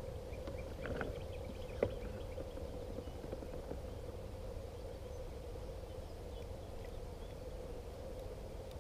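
Quiet outdoor background with a steady low hum and rumble, broken by a soft click about a second in and a sharp click just under two seconds in.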